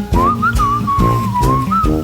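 Background music: a whistled melody over guitar and bass with a steady beat.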